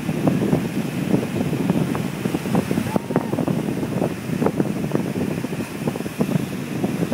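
Wind buffeting the microphone in rough, uneven gusts, over ocean surf breaking and washing among shoreline rocks.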